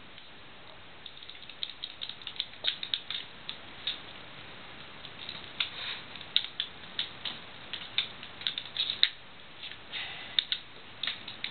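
A cat wrestling and kicking a Kickeroo plush kicker toy: irregular rapid scuffles and scratches that start about a second in, with a sharper click about nine seconds in.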